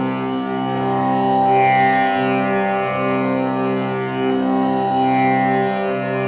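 Tanpura drone tuned to C (pehla safed), its strings plucked one after another in a slow repeating cycle. Each string rings on into the next, with a buzzing shimmer of high overtones.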